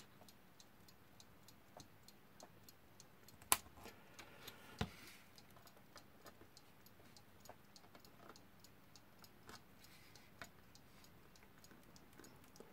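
Faint, even ticking of a Smiths alarm clock movement, its balance wheel and hairspring still swinging. A few louder clicks of small pliers on the metal movement stand out, the loudest about three and a half seconds in.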